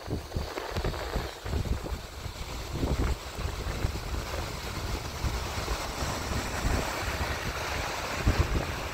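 Wind buffeting the microphone in irregular gusts over a steady rushing hiss, the strongest gusts about three seconds in and near the end.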